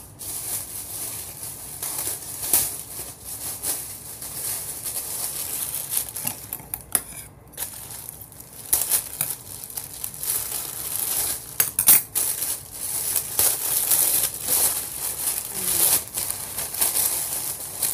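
Clear plastic packaging bag crinkling and rustling as it is handled and an item is pulled out of it, with scattered sharp crackles and a brief lull about seven seconds in.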